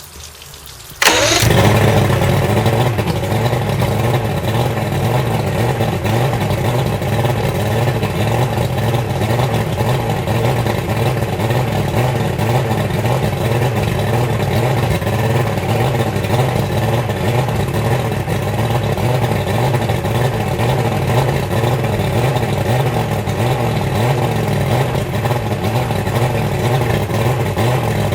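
Johnson 150 V6 two-stroke outboard engine starting about a second in and then running steadily at low speed, with its quick-start circuit grounded out to test whether a faulty temperature sensor is holding the quick start on.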